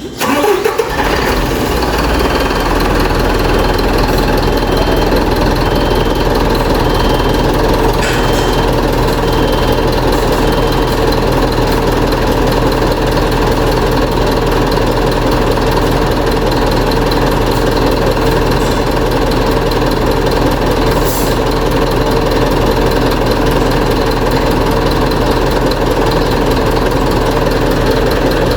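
Truck diesel engine cranking and catching within the first second, then idling steadily with a constant low rumble.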